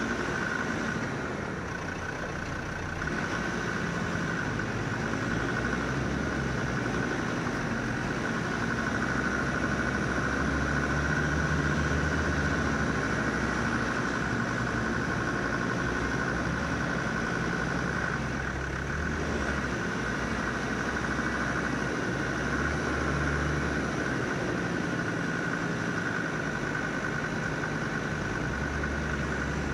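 Land Rover Defender Td5's five-cylinder turbodiesel running steadily at low revs, a deep rumble with a steady high whine over it.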